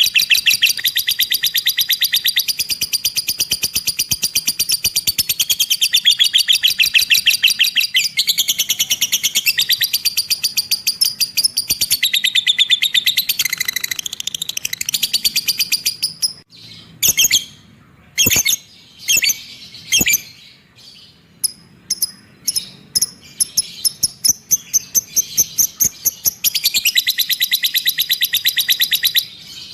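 A lovebird ngekek: a long chattering trill of rapid, evenly repeated high notes. About halfway through it breaks into scattered separate chirps, and the fast chatter resumes near the end.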